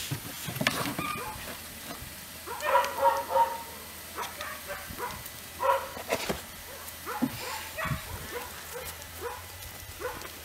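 Seven-week-old puppies yipping and barking as they wrestle and tug over a toy in play, with a cluster of short calls about three seconds in, a sharp one near six seconds, and scattered smaller yips between.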